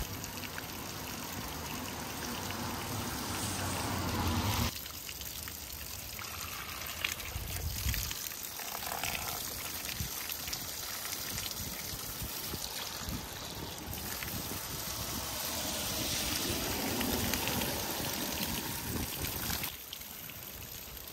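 Water trickling and splashing from a spout and a wooden ladle onto stones and fallen leaves. The sound changes abruptly several times.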